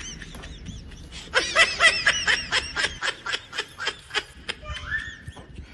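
A person laughing: a long run of quick ha-ha pulses that builds about a second in and fades toward the end.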